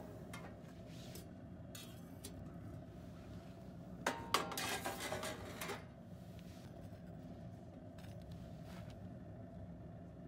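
Steel wire oven rack of a wood-fired camp stove being pulled out, metal scraping and clattering for about two seconds near the middle, with a few lighter clicks around it.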